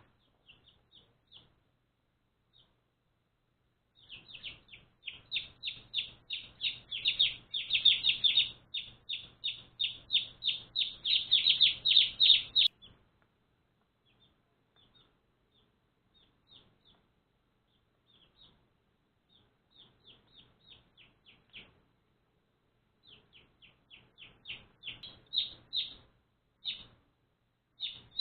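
One-day-old baby chicks peeping: rapid series of short, high, falling chirps, several a second. A dense, loud run of peeping lasts several seconds, then thins to scattered quieter peeps, and builds again near the end.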